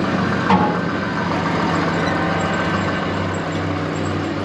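Tractor engine running steadily as the tractor and dump box are manoeuvred into place for loading, with a single sharp clack and brief squeak about half a second in.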